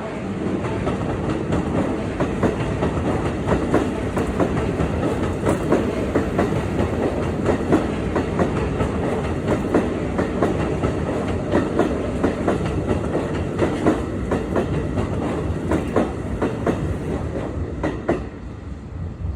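Keikyu electric train passing close by, its wheels clattering over the rail joints in a continuous run of clicks, the noise dropping away suddenly near the end as the last car goes by.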